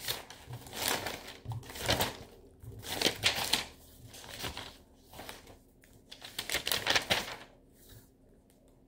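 Sheets of paper rustling as they are handled and shuffled, in several swells that stop about seven seconds in.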